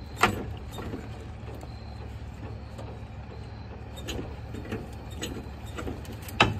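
Scattered metal clicks and knocks from work on the front coil-spring suspension of an OBS Ford F-150, the loudest just after the start and another near the end, over a steady low hum.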